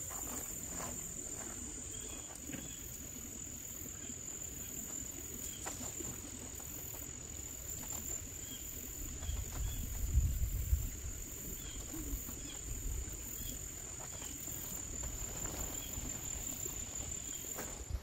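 Insects trilling in one steady high-pitched drone, with a few faint clicks and a low rumble that swells about halfway through.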